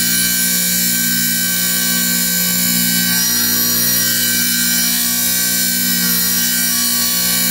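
Wet tile saw running with its blade spinning, a loud, steady motor hum and whine that does not change.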